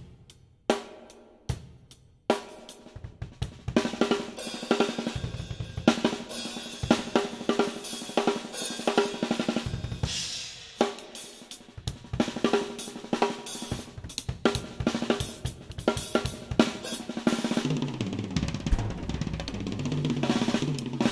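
DW Collector's Series drum kit being played, heard through a GoPro Hero 5 Black's built-in microphone: a few separate strikes, then busy grooves and fills on snare, toms, bass drum, hi-hat and cymbals. A fast roll on the drums comes near the end.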